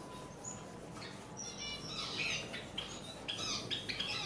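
Caged Java sparrows chirping: a quick run of short, high calls that starts about a second and a half in.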